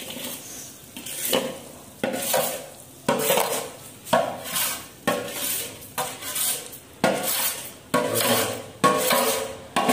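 A flat tool scraped in repeated strokes, about one a second, across a large steel pan coated with hardened beroza (pine resin). The pan rings briefly after each stroke.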